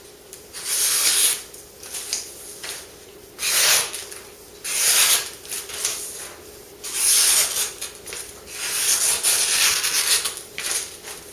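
A series of about five rubbing, scraping strokes, each from half a second to about two seconds long, the longest one near the end.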